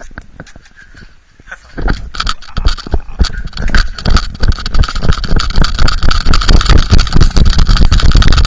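Knocking and rubbing noise from an action camera worn on a small dog as the dog moves about, with rapid, irregular thumps and scraping. Quiet at first, it becomes a busy, loud clatter about two seconds in.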